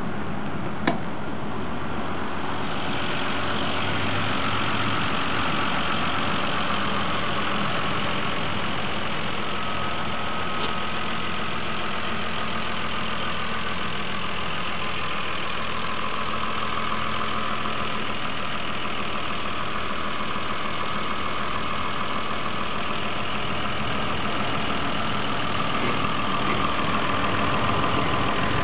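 Toyota Supra 3.0 Turbo's turbocharged straight-six (7M-GTE) idling steadily, heard from the open engine bay, with a single short click about a second in.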